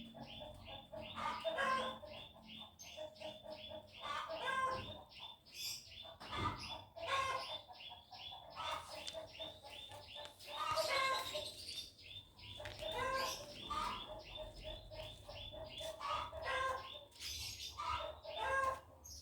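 Chickens clucking in repeated calls every couple of seconds, over a small bird chirping at a steady, rapid rate of about five chirps a second.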